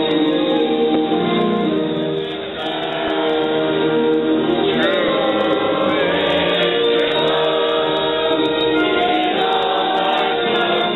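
Music with a choir singing, held notes over a steady accompaniment.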